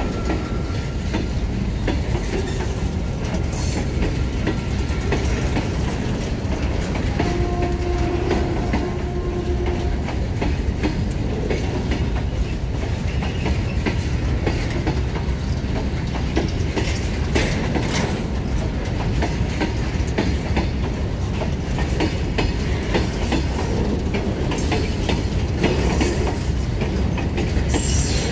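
Freight train of covered goods wagons rolling past, a steady rumble with the wheels clacking over the rail joints.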